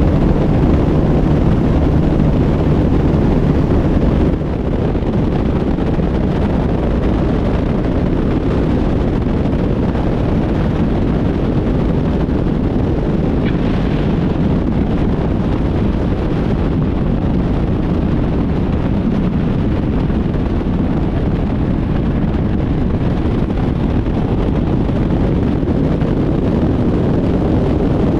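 A Piper Comanche 250's six-cylinder engine and propeller running steadily under heavy wind rush, through a touch-and-go landing. About four seconds in, the sound changes from the cockpit to a microphone under the fuselage, where wind noise and the wheels rolling on the runway take over.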